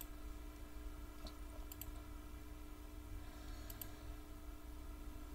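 Computer mouse clicking a few times, twice as a quick double click, over a steady low electrical hum.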